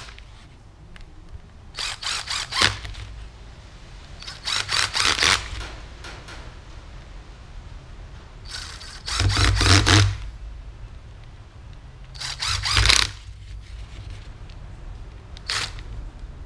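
Cordless drill-driver running screws into the plastic casing of a pressure-washer trigger gun, one screw at a time. It runs in five short bursts, the loudest and longest about nine to ten seconds in.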